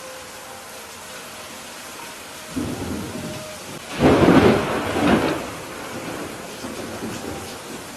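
Thunder over steady rain: a low rumble begins about two and a half seconds in, swells to its loudest peal about four seconds in, then rolls away into a quieter rumble.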